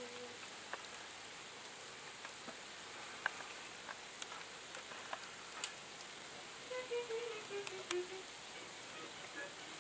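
Ice pellets and sleet falling and ticking against a window and windowsill: a steady hiss with scattered sharp clicks. A faint voice sounds briefly in the background about seven seconds in.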